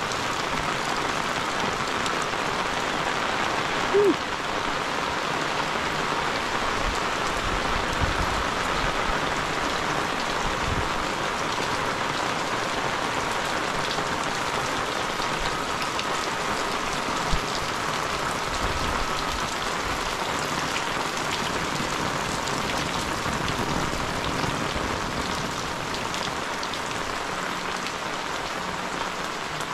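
Heavy rain falling steadily on roofs and ground and dripping from the eaves. A brief sharp knock stands out about four seconds in.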